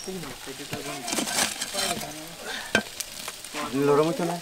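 Glowing charcoal embers crackling and sizzling in an aluminium pot, in uneven patches of hiss with a single sharp crack partway through. People talk quietly in the background.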